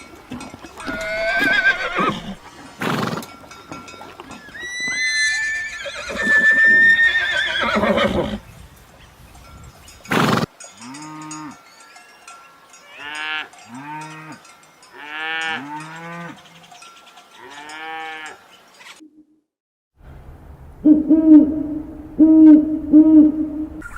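Farm animals calling in a series of separate short clips: high gliding calls first, then a run of short, arched, pitched calls, and after a brief silence, loud, wavering calls near the end.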